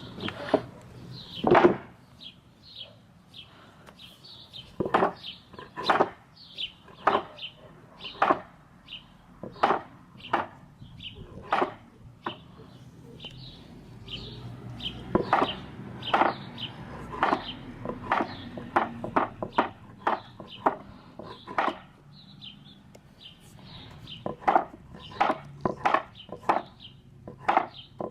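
Puppies squeaking and yelping in short, sharp calls, one or two a second at irregular intervals.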